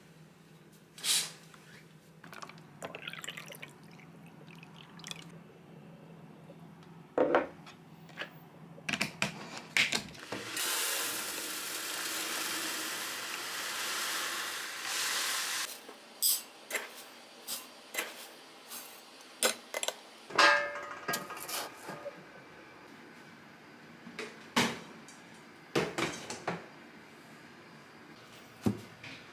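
Kitchen handling sounds: scattered knocks and clinks of containers and dishes. About ten seconds in comes a steady rushing hiss lasting about five seconds: raw rice pouring out of a rice storage tin.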